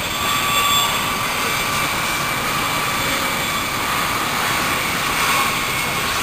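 M1 Abrams tank's gas-turbine engine running with a steady high whine over a broad rush of noise as the tank moves through mud.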